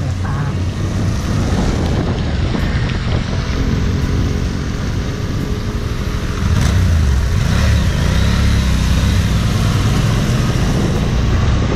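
Motorcycle engine running while riding, its pitch rising and falling with the throttle.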